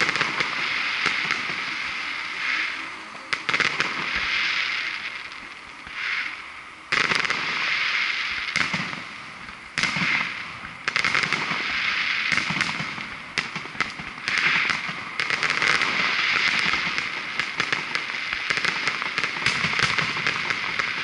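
Fireworks display: aerial shells bursting with sharp bangs over dense, continuous crackling, with the sharpest bangs about seven and ten seconds in.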